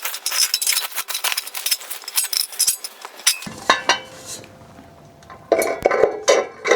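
Metal photo booth parts clinking and rattling against each other as the pillar is fitted onto the base plate: a quick run of small clinks for about three seconds, then a few separate clinks.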